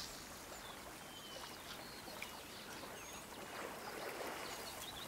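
Faint running stream water, with a few faint, short high bird chirps over it.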